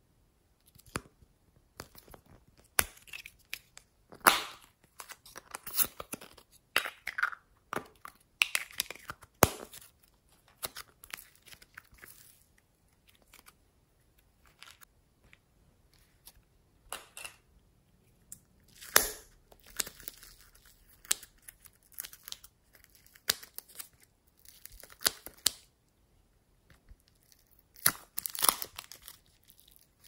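Glossy slime being squished and stretched by hand, giving irregular sticky clicks and crackles in clusters, with a few short pauses.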